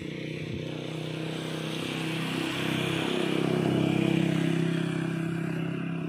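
A motor vehicle passing by: its engine sound grows louder to a peak about four seconds in, then fades.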